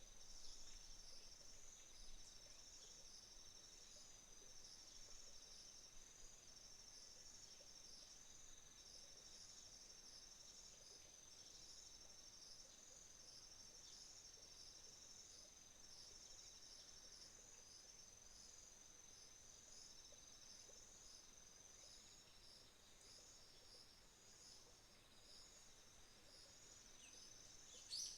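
Autumn insects singing faintly in a chorus: one steady high trill, with a pulsed chirping over it that comes in trains a few seconds long with short breaks between. A brief bird chirp sounds right at the end.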